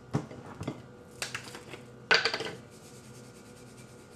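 A few light clicks as a salt container is handled and opened, then a short rattle of salt shaken out over a bowl about two seconds in, the loudest sound here.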